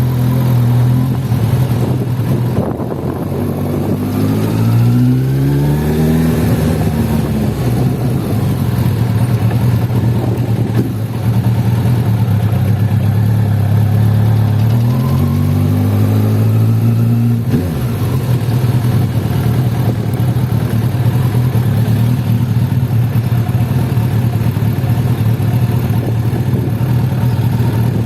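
Suzuki Bandit 1200S's air/oil-cooled inline-four engine idling, revved twice and dropping back to idle each time. The owner is chasing a noise below 2500 rpm that seems to come from the top of the cylinder head, and wonders whether it is the starter clutch.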